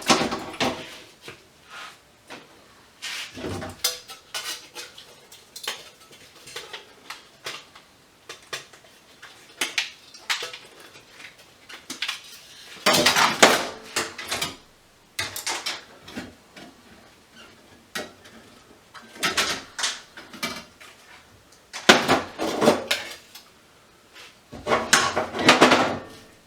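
Small metal parts clinking and clattering in irregular bunches as scrap light-fixture pieces are handled and sorted.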